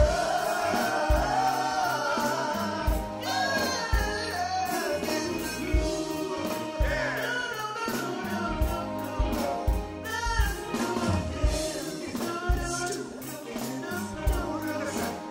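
Live soul band with singers performing, sung melody over a steady kick-drum beat.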